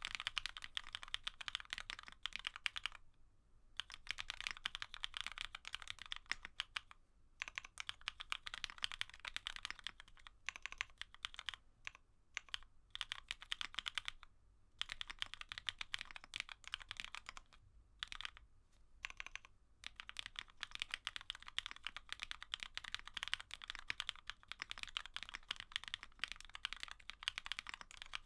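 Typing on a GEONWORKS F1-8K custom mechanical keyboard with an FR4 Poron gasket plate, CherryCream linear switches (Cherry black housings with Kailh Cream stems) and CMK keycaps. Runs of rapid keystrokes are broken by short pauses.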